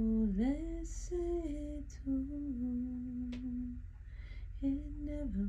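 A woman singing a slow, wordless melody, humming and holding long notes that slide from one pitch to the next, over a steady low hum.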